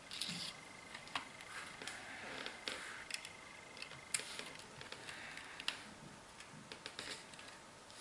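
Scattered small clicks, taps and light rustling of hands handling a plastic H0 model railway coach and its LED circuit board with wires, a few clicks sharper than the rest. A faint steady high tone stops about halfway through.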